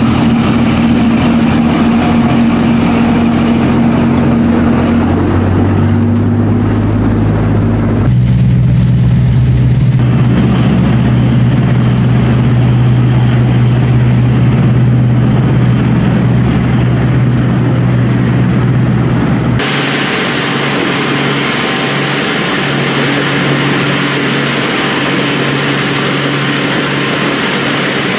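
Tour speedboat's engine running at speed under a rush of wind and water. The engine note shifts about eight seconds in. About twenty seconds in, the sound turns abruptly to a brighter hiss with a weaker engine hum.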